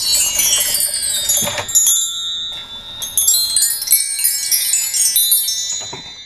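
Mark tree chimes played by a motor-driven doorbell mechanism: a cascade of high ringing tones falling in pitch as the striker sweeps across the bars, a brief pause about two seconds in, then a second run across the bars ringing out.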